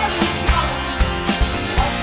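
Rock band recording playing, with drums keeping a steady beat of about two hits a second under guitars.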